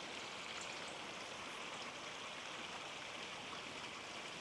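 Quiet riverside ambience: a steady, even hiss with a few faint ticks.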